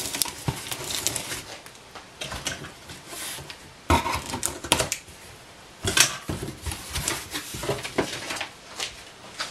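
Cardboard shipping box being opened by hand: the taped top pulled and torn and the flaps folded open, with irregular rustles, scrapes and sharp knocks of cardboard. The loudest knocks come about four and six seconds in.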